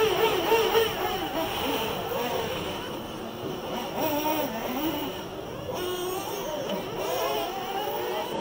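Several .21 nitro engines in 1/8-scale RC buggies running at once, each whine rising and falling in pitch as the cars accelerate and brake.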